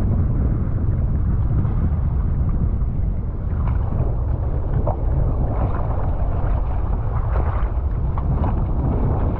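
Wind buffeting the microphone of an action camera on a wingfoil board out on open water, a steady low rumble, with small irregular splashes of water against the board.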